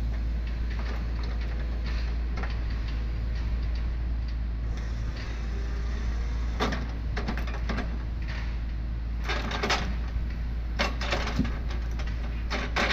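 Excavator's diesel engine running steadily as its log grapple works. From about halfway through comes a series of sharp wooden knocks and clunks as logs are set down onto the truck's stacked load.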